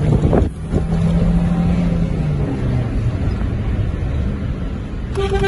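Engine and road noise inside a moving Chevrolet car's cabin, with a steady low engine drone for the first couple of seconds. A car horn starts sounding near the end.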